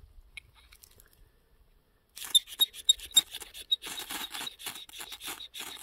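A knife spine scraped hard down a ferrocerium rod, throwing sparks onto tinder: a quick series of sharp, high-pitched rasping strokes starting about two seconds in, a few single strikes and then faster scraping.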